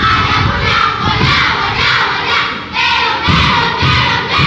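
A group of children reciting loudly in unison: choral reading in short shouted phrases with brief breaks between them.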